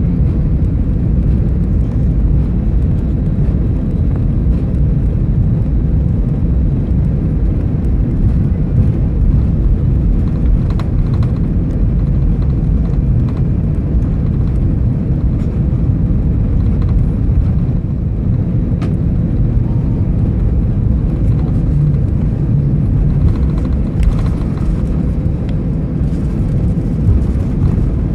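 Steady low rumble heard inside the cabin of an Airbus A319 taxiing after landing, its engines running at idle, with a few faint clicks.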